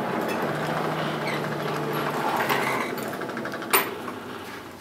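Coal forge with a steady mechanical whir of air being blown through the fire, and one sharp metallic clink about three-quarters of the way through.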